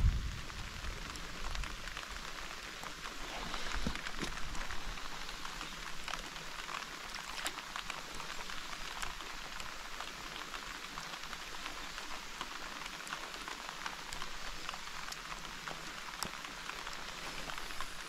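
Steady rain falling, an even hiss with many separate drop ticks.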